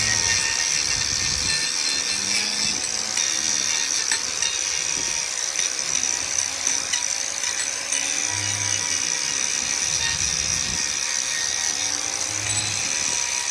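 Angle grinder fitted with a wood carving disc running steadily while grinding down a small tree stump, with a steady high-pitched whine over the rasp of wood being chewed away.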